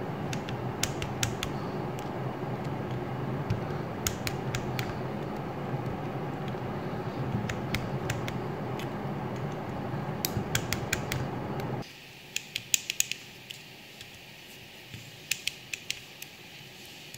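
Small click-type torque wrench clicking in quick clusters of sharp clicks as the cylinder-head bolts of a miniature V8 model engine are brought to torque. Under it is a steady background noise that drops away about two-thirds of the way through.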